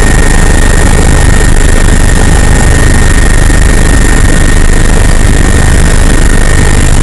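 Tour helicopter's engine and rotor noise, loud and steady, a heavy low rumble with a thin steady high whine over it.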